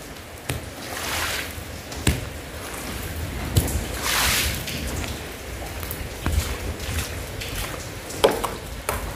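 Rain falling during a thunderstorm: a steady hiss over a low rumble that swells twice, about a second in and again around four seconds in, with a few sharp knocks along the way.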